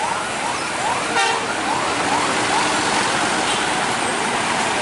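Street traffic with a heavy Hino truck passing slowly, its engine and tyre noise forming a steady din. A run of short rising electronic chirps repeats about two to three times a second and fades out around halfway, and a brief horn toot sounds about a second in.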